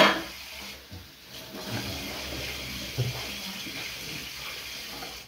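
A brief loud noise at the very start, then a steady rush of running water, like a tap left running, which stops abruptly at the end.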